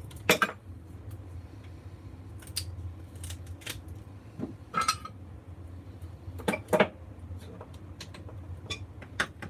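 Metal clanks and clicks of hand pliers and a light ballast's sheet-steel case being worked and set down on a wooden workbench, a dozen or so irregular knocks. A steady low hum runs underneath.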